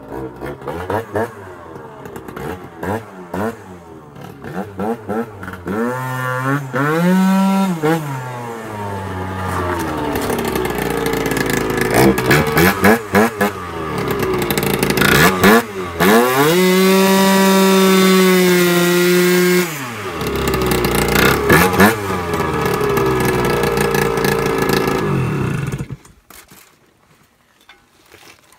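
Yamaha BWS scooter's two-stroke engine, bored out to 80cc, blipped as it rides up, then revved hard again and again in rising-and-falling bursts, with one high rev held steady for about four seconds past the middle. The engine cuts off suddenly near the end, leaving a few metallic clinks.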